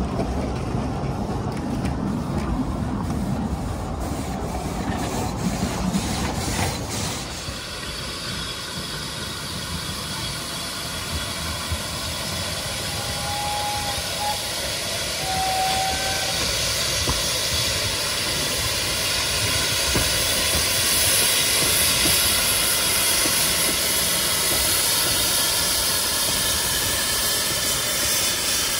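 Narrow-gauge steam locomotive hissing steadily with escaping steam, the hiss growing louder in the second half. For the first few seconds a low rumble of a train on the rails dominates.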